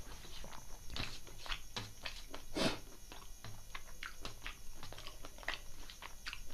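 Close-miked mouth sounds of eating chicken liver and gizzard curry with rice: wet chewing with irregular clicks and smacks, and one louder, longer mouth sound a little under three seconds in.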